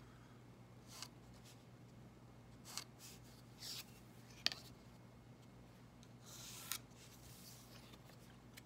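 Faint pencil strokes scratching along the edge of a wooden ruler on paper, with the ruler being shifted between lines: a few short strokes, a sharp tap about four and a half seconds in, and a longer stroke of about half a second near the end.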